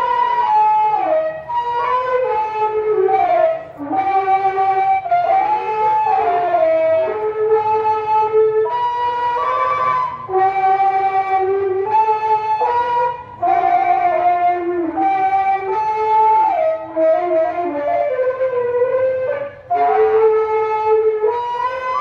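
Qaswida music: a melody on a reedy wind instrument, held notes joined by sliding ornamented turns, doubled an octave apart, in short phrases with brief breaks between them.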